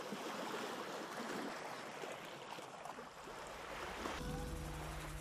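Sea water washing and lapping, a steady hiss with small crackles; about four seconds in a low steady hum joins underneath.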